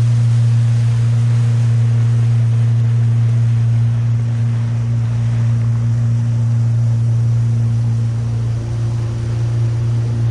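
Jet-drive outboard motor of a river boat running under way at a steady, even pitch.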